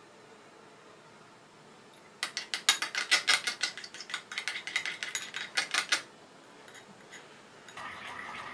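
A spoon clicking and scraping quickly against a bowl as the blue-tinted glue and shampoo slime mixture is stirred, about six or seven strokes a second. It starts about two seconds in and stops suddenly a few seconds later.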